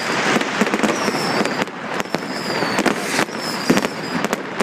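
Many fireworks and firecrackers going off at once: a continuous din of bangs and crackling, with a short, slightly falling high whistle about once a second.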